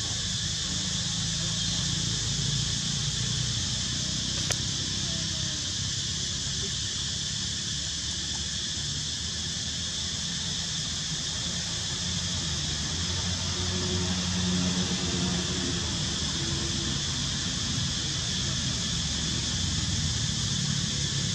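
Steady high-pitched drone of a forest insect chorus, unbroken, with a low murmur underneath.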